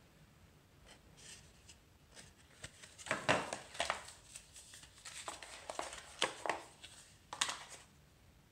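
Cardboard packaging and a paper sleeve being handled: irregular scraping, rustling and small clicks as a small accessory is pulled out of a box tray, loudest about three seconds in.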